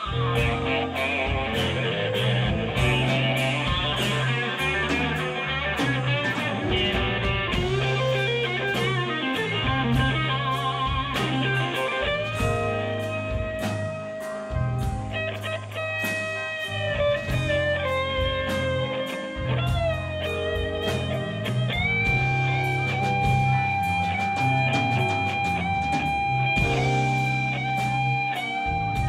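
Live rock band playing an instrumental: bass and drums under an electric guitar lead. About halfway through, the guitar moves into long held notes that bend and slide between pitches.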